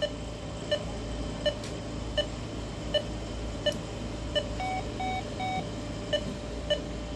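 Veterinary anesthesia monitor beeping with each heartbeat of the anesthetized dog, short, even beeps about one and a half times a second. About five seconds in, three longer beeps at a different pitch sound from the monitor.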